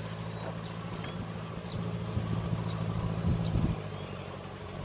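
Engine of a small farm truck running steadily as it hauls a heavy load of rice sacks, with a few louder knocks a little past three seconds in.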